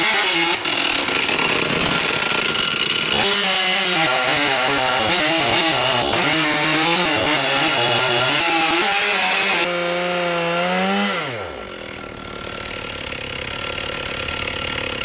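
Stihl chainsaw in an Alaskan chainsaw mill, cutting through a walnut log at full throttle. The engine pitch wavers as it works under load. About eleven seconds in, the throttle is let off and the engine winds down, and a quieter steady noise follows.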